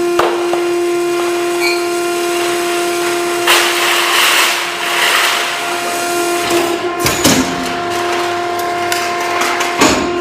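Heavy industrial machinery running with a steady hum. A rush of grinding noise comes about three and a half seconds in, and sharp knocks follow about seven seconds in and again near the end.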